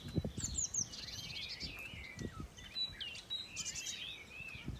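Songbirds singing: quick sweeping whistles, chirps and fast trills overlapping, with a few dull low thumps underneath.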